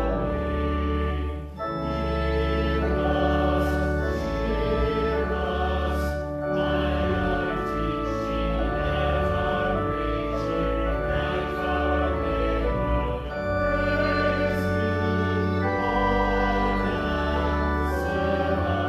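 Choir singing a hymn with organ accompaniment, in slow held chords over steady deep bass notes.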